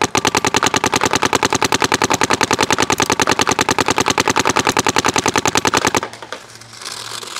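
Paintball marker with an HK Army XV 15-inch one-piece barrel fired in a fast, even string of shots, many per second, for about six seconds before it stops.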